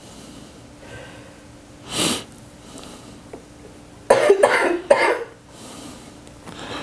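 A man coughs once, a short sharp cough about two seconds in; a little later comes a louder second or so of short noisy bursts.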